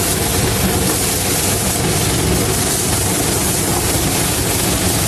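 Steady, unbroken running noise of the Ward Kimball, a narrow-gauge steam locomotive, heard from inside its cab as it travels.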